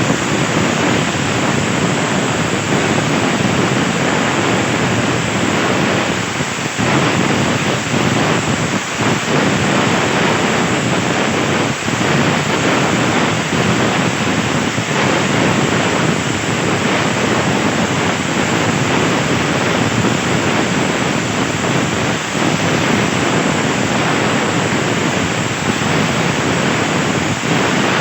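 Electric CNC plasma torch cutting 1.5 mm steel sheet: a loud, steady hiss of the arc and air stream that runs on without a break.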